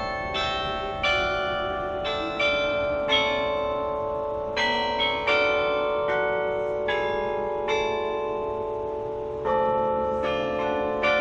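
Tower bells being played as a tune, one struck note after another at an uneven pace, each bell ringing on and overlapping the next.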